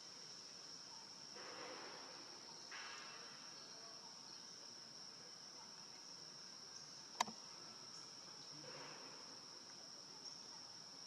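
Faint, steady high-pitched insect trill, with a single sharp click about seven seconds in and a few brief soft rustles.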